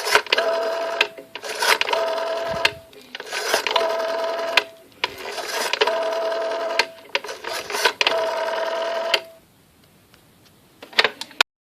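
Old telephone sound effect: five rattling bursts of about a second and a half each, separated by short gaps, each with a steady tone running through it. Near the end come a couple of sharp clicks.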